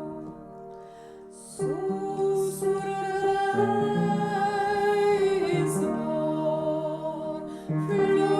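A Romanian Christmas carol (colindă) sung in long held notes over a soft instrumental accompaniment. The music fades briefly about a second in, then the singing comes back in strongly.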